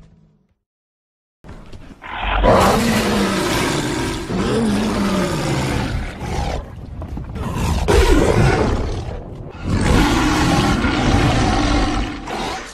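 Made-up dinosaur roar sound effect for a horned ceratopsian (Anchiceratops): long, growling roars with wavering pitch, three in a row with short breaks between them, starting about a second and a half in.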